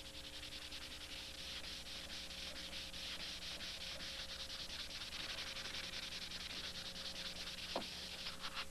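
Hand sanding: a folded sheet of sandpaper rubbed back and forth on a wooden board, making a quick, even rasp of many short strokes. A single light knock near the end.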